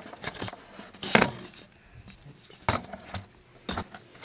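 Handling noise from a small handheld camera being gripped and set down on a bed: a few sharp knocks and clicks with rustling, the loudest about a second in.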